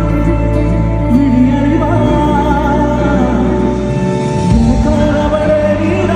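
Live concert music recorded on a phone from the audience: a singing voice over a held bass and sustained instrumental chords.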